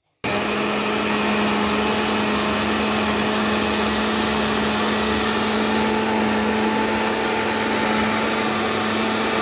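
Countertop electric blender running at a steady speed, puréeing boiled saag greens with yogurt and water: a loud, even motor whir with a steady hum that switches on abruptly just after the start.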